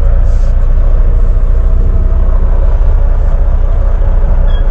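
Volvo semi-truck's diesel engine running with a steady low rumble, heard from inside the cab as the truck rolls slowly forward.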